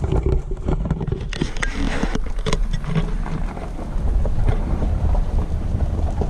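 Wind buffeting the microphone: a heavy, uneven low rumble, with scattered small knocks and crackles over it.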